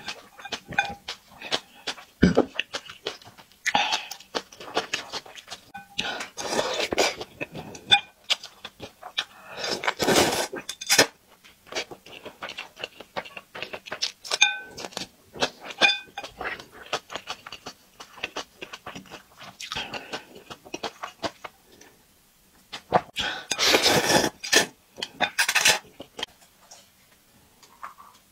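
Close-miked eating sounds: wet chewing and lip smacking, broken by several long slurps of broth from a glass bowl, the longest near the end. Chopsticks click against the glass bowl in between.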